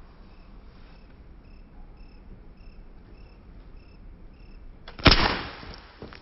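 A single sharp crack about five seconds in as a metal BB strikes a drink can, followed by about a second of fading hiss as the punctured can sprays its fizzy contents. Crickets chirp steadily in the background before the hit.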